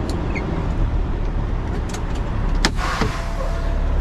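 Semi truck's diesel engine idling, heard inside the cab. A little over two and a half seconds in there is a sharp click followed by a short hiss of air.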